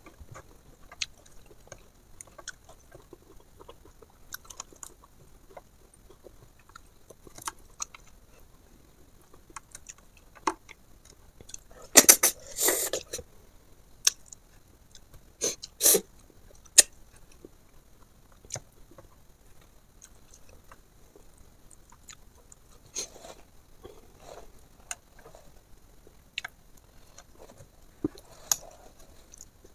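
A person eating fish and rice by hand, chewing close to a clip-on microphone: scattered soft mouth clicks and crunches, with a louder cluster about twelve seconds in.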